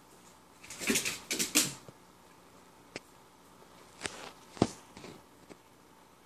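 Wire pet cage holding ferrets rattling and clicking in short bursts: a quick clatter about a second in, a single click around three seconds, and two more sharp rattles around four and a half seconds.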